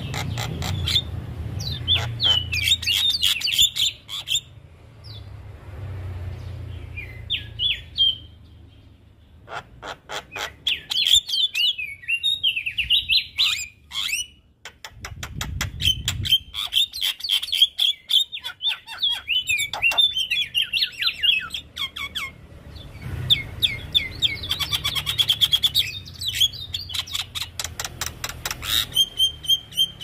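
Javan myna (jalak kebo) singing in several long bursts of rapid chattering, dense clicks and whistled notes, with short pauses between bursts.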